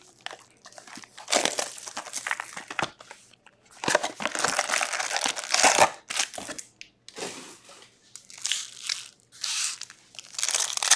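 Foil-wrapped Upper Deck Ice hockey card packs and their cardboard box crinkling and rustling as the packs are pulled out and handled, in irregular bursts with short pauses between.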